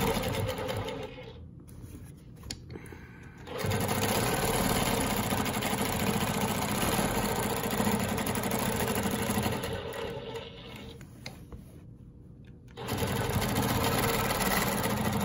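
Innova 22-inch longarm quilting machine stitching a ruler-guided quarter-inch echo line through the quilt layers. It runs steadily in three stretches, dropping away twice for a couple of seconds each time.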